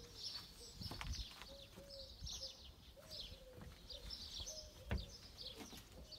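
Small birds chirping over and over, with a lower repeated call underneath. Soft knocks come at about a second in and again near the five-second mark.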